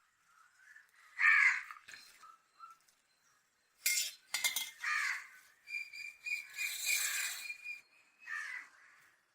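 A bird calling in three short, harsh calls spread a few seconds apart, with a few sharp clinks about four seconds in. A steady high tone runs for about two seconds near the end.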